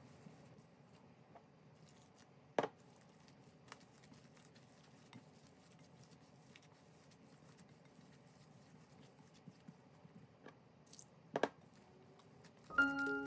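Hands kneading crumbly corn masa dough in a glass bowl: soft crumbling and squishing with scattered light ticks and two sharp clicks, one early and one near the end. Mallet-percussion music starts just before the end.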